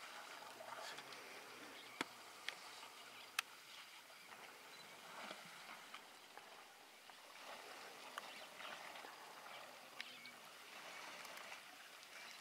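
Faint bush ambience at a waterhole with scattered animal calls. A few sharp clicks stand out about two, two and a half and three and a half seconds in, and once more near ten seconds.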